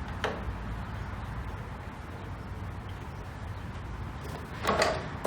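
Handling noise at a mitre saw while lining up a cut: a sharp click just after the start, then a short clatter of wood and tool near the end; the saw is not running.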